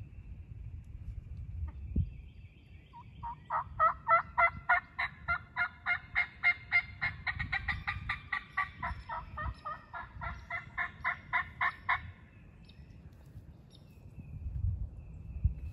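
A hunter's turkey call imitating a hen: a long run of rapid yelps, about four a second, starting about three seconds in and lasting some eight seconds before stopping abruptly.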